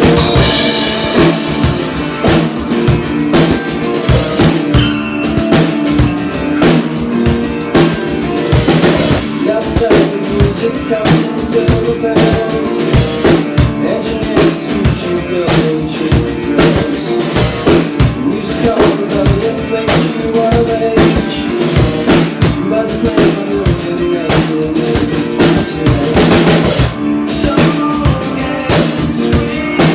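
Music with a drum kit keeping a steady beat of bass drum, snare and rimshot under pitched instrumental parts.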